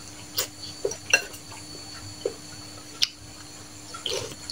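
Metal forks and spoons clinking and scraping against ceramic soup bowls while eating bakso, with about five short sharp clinks spread through the few seconds.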